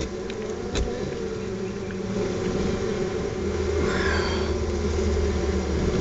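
Honeybee colony buzzing steadily around comb opened in a ceiling, with a low rumble building in from about halfway through.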